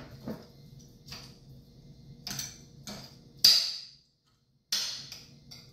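Metal fork and spoon clinking and scraping against a ceramic plate while food is cut and scooped: a string of separate clinks, the loudest a little past the middle.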